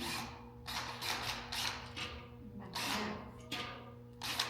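Screwdriver with a magnetic bit driving screws into the stand: a series of short rasping strokes, irregularly spaced.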